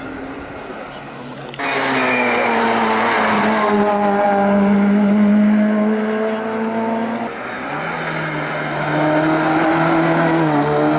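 Race car engine running hard on a hillclimb run. About one and a half seconds in, the sound suddenly gets much louder. The engine note then slides slowly down for several seconds, settles onto a steadier note, and climbs again near the end.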